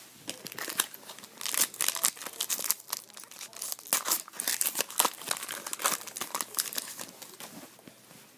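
Trading card pack wrapper being handled, crinkling with irregular crackles and some tearing.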